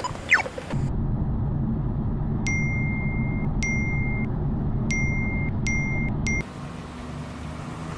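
Low, steady car-cabin rumble with a series of five electronic beeps at one pitch, each shorter and closer together than the last, like a warning that grows more urgent. The rumble cuts off shortly after the last beep.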